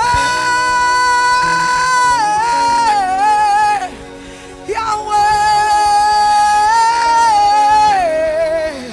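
Worship singing: a voice holds two long wordless notes, each sliding down in a run at its end, over soft steady accompaniment.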